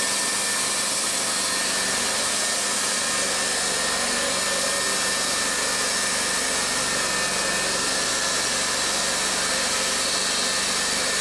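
Timberking B-20 portable bandsaw mill running steadily, its engine under load as the band blade saws along a walnut log.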